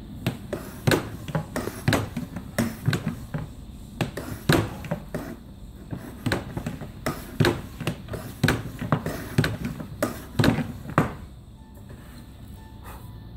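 Hand-operated Loretto/Mason windway cutter being worked back and forth by its lever, a run of sharp knocks and clunks about two a second as the cutter takes the last strokes through the recorder head's windway. The strokes stop about 11 seconds in.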